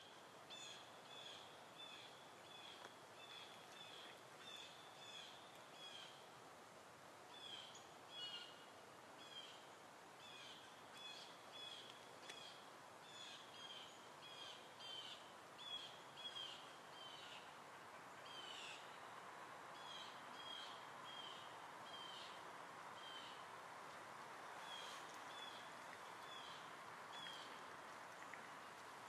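Faint small-bird calls: short, high, slightly falling chirps repeated about once or twice a second over a steady hiss.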